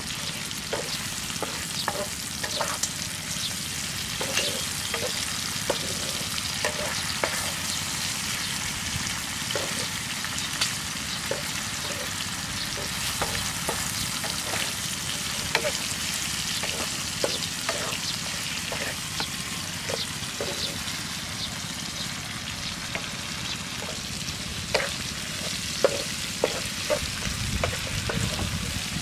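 Chopped chicken livers with chilli and garlic sizzling in oil in a frying pan, with the spatula scraping and tapping against the pan as they are stirred.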